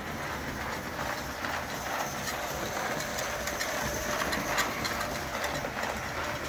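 Bing gauge 1 live steam locomotive, from around 1912, running on metal track: a steady rattling clatter of wheels on rail with many small clicks, growing a little louder about four seconds in as it passes close.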